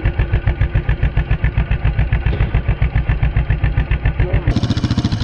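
Yamaha Raptor 700R's single-cylinder four-stroke engine idling, a steady, even pulse of about ten beats a second.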